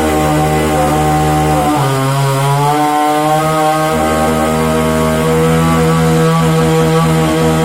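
Chainsaw running at high revs while cutting a tree. The engine note drops for about a second, about two seconds in, then picks back up and holds steady.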